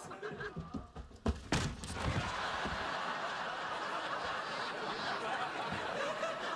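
A few heavy thuds about a second and a half in, then a sitcom studio audience laughing steadily.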